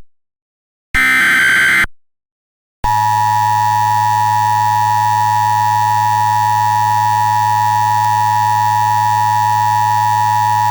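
Emergency Alert System tones. About a second in comes a last short burst of digital SAME header data, a harsh warbling screech. After a brief pause, the steady dual-tone EAS attention signal sounds for about eight seconds and cuts off near the end.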